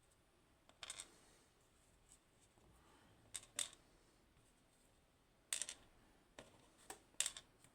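Faint, scattered small metallic clicks and taps of a pin-tumbler lock's parts being handled during disassembly: one about a second in, two close together midway, then several near the end.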